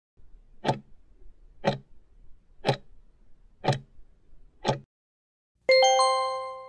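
Countdown timer sound effect: five clock ticks, one a second, then a bell-like chime about a second after the last tick, ringing and fading as time runs out.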